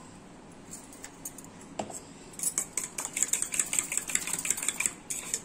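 Eggs being beaten with a steel spoon in a stainless-steel bowl: a few light taps, then from about halfway a rapid, steady clinking of the spoon against the bowl.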